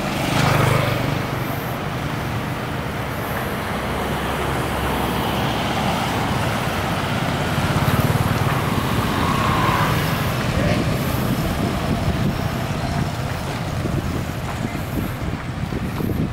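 Road traffic noise: a steady rumble of vehicles passing, swelling just after the start and again around the middle.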